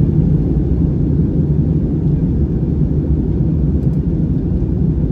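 Steady low roar of an airliner cabin in flight: engine and airflow noise with no sudden changes.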